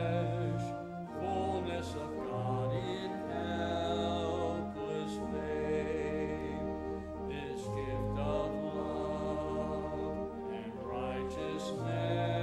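A congregation singing a hymn with church organ accompaniment, in slow, held chords over a low bass line.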